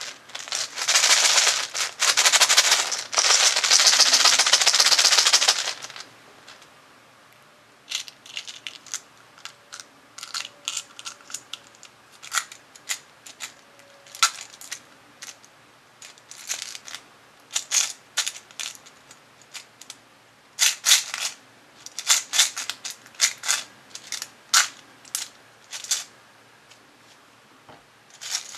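Play-Doh being squeezed and torn apart by hand close to the microphone: dense crackling for the first six seconds, then scattered clicks and crinkles as a small plastic toy is pulled out and handled.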